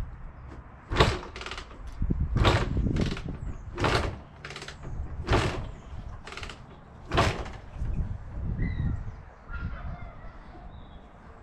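Kick-starting a 1982 Honda MTX 200 two-stroke dirt bike: about eight clattering kicks in the first seven seconds, the engine turning over but not firing. It will not start despite spark and fuel.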